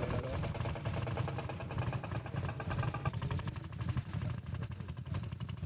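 Tractor engine running steadily with a rapid, even chug while it pulls a tine cultivator through a stubble field. The higher-pitched part of the sound drops away about three seconds in.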